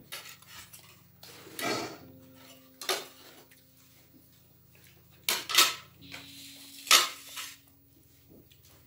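A handful of short clinks and knocks from a dinner plate and a small sauce bowl being handled while momos are picked up and dipped. The loudest come a little past halfway through and again about a second later.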